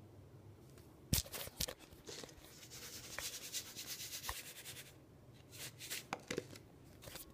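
An open Gatorade powder tub handled on a granite countertop. It knocks sharply a couple of times about a second in, then rustles and scrapes for a few seconds as it is turned in the hand, then knocks several more times near the end.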